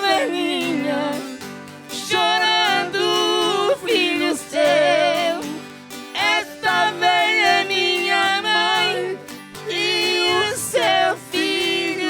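Brazilian sertanejo (country) music playing: a band with a wavering melodic lead over a steady low accompaniment.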